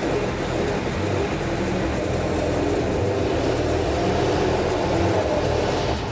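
A car engine running steadily under load, turning a second engine over through a coupled axle shaft and gearbox; the driven engine has little compression and has not started yet.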